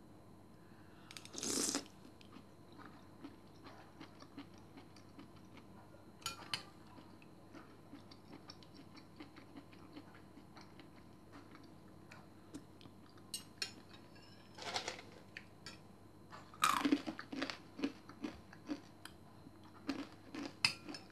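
Someone eating soup: quiet chewing, with a metal spoon now and then clinking and scraping against a ceramic bowl. The clinks are sparse at first and come several in a row near the end.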